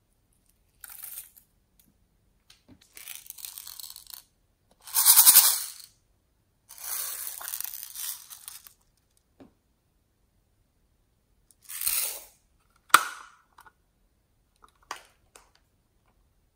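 Small plastic sequins rattling and spilling in a hand in several short bursts, the loudest about five seconds in. A single sharp plastic click comes about three-quarters of the way through, from a small plastic case being snapped.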